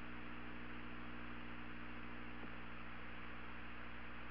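Steady hiss and electrical hum of an open broadcast audio line, with no voice on it.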